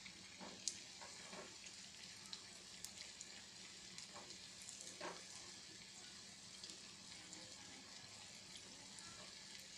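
Punugu (fritters of fermented idli/dosa batter) deep-frying in a small pan of hot oil: a faint, steady sizzling hiss with scattered small pops. A few soft clicks come as a slotted spatula turns the fritters.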